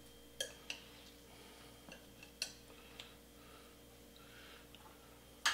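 Metal tongs clicking and clinking against the slow cooker's crock while rib tips are lifted out: a handful of separate sharp clicks, the loudest near the end.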